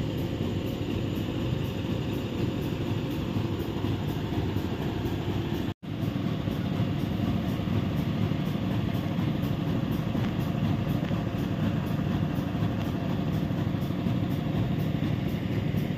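Hitachi EX5500-5 mining excavator's diesel engines running steadily, with a brief dropout about six seconds in.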